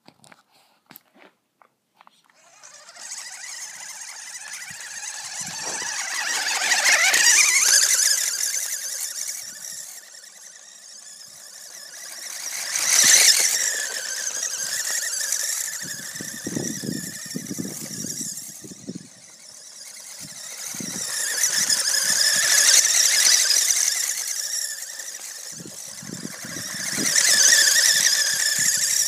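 Vintage Tamiya Grasshopper RC buggy's stock brushed electric motor whining at a high pitch, swelling loud and fading again several times as the car speeds toward and away. Lower rumbling comes and goes in the middle and near the end.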